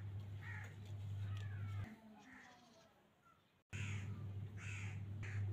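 Crows cawing, several short harsh calls spread across a few seconds, over a steady low hum that drops out for about two seconds in the middle.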